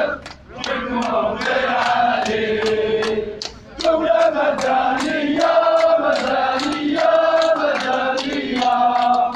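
A crowd of male protesters chanting slogans in unison, phrase after phrase, with regular handclaps. The chant breaks off briefly near the start and again after about three and a half seconds.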